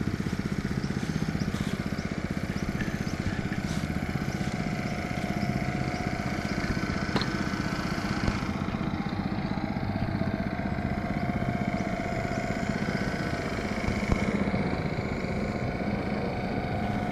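Small engine-driven water pump running steadily at a constant speed, circulating dam water through the tea tree oil still's condenser coil.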